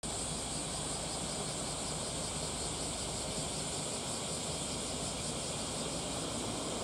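Steady outdoor ambience: wind rumbling on the microphone under a continuous high-pitched hiss.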